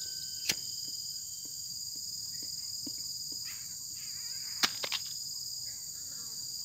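Steady high-pitched insect chorus, with a sharp click about half a second in and a quick run of three clicks near five seconds in from a disposable lighter being flicked.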